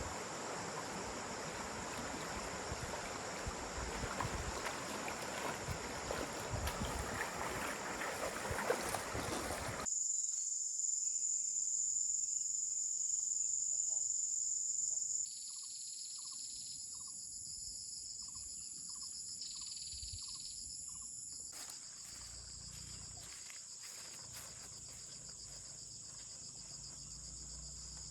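Outdoor insects, crickets among them, keeping up a steady high-pitched drone. For the first ten seconds a rushing noise runs under it, then stops abruptly, leaving the insect drone alone and changing a couple of times more.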